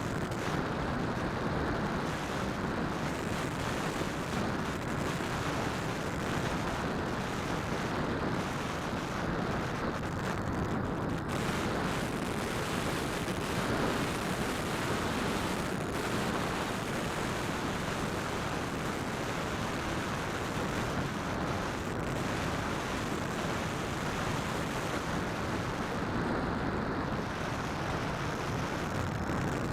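Steady rushing noise from a Phantom quadcopter's spinning propellers and the airflow over the onboard keychain camera's microphone during flight.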